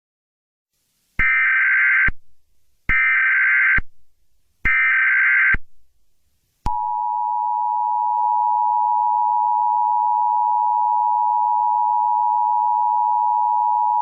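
Emergency Alert System tones: three short bursts of warbling data tones, the SAME header, each under a second long. About six and a half seconds in comes the steady two-tone attention signal, which holds unbroken and announces an emergency alert message.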